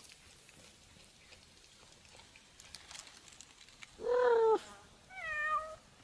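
Domestic cat meowing twice, about four seconds in: a short, lower meow, then a higher, wavering one a moment later.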